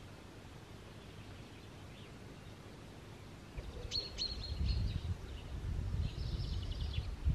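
Songbirds chirping outdoors: a few sharp chirps about halfway in and a short high trill near the end, over a low gusty rumble of wind on the microphone that starts about halfway.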